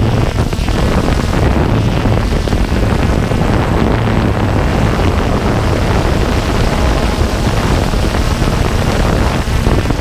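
Steady rush of wind buffeting the microphone of the camera on a Walkera Tali H500 hexacopter drone, mixed with the drone's rotor noise as it hovers.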